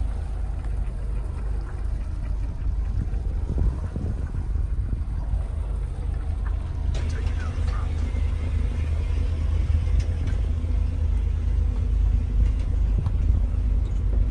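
Low, steady rumble of a boat under way, its engine droning, with a faint steady hum joining about halfway through.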